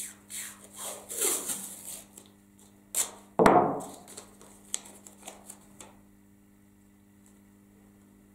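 Masking tape being pulled off its roll and torn, with a sharp knock about three and a half seconds in as the roll is set down on the table, then light rubbing as the strip is handled and pressed onto cardboard.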